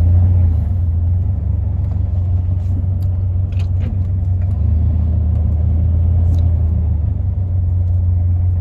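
Pickup truck engine running with a steady low drone, heard from inside the cab as the truck is driven slowly into place.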